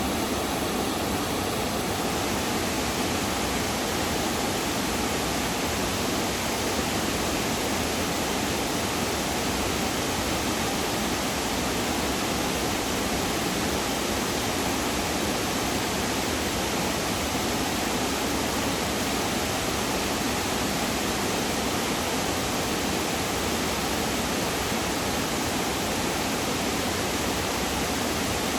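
Steady, even rush of whitewater.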